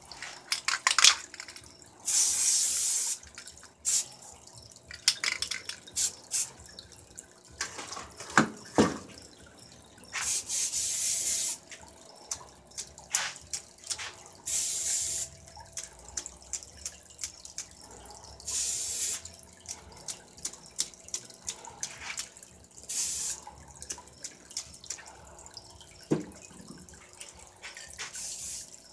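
Aerosol spray paint can hissing in about six short bursts, with sharp clicks and rattles between them.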